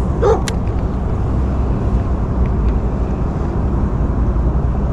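Steady wind rumble on the microphone, with a short click about half a second in.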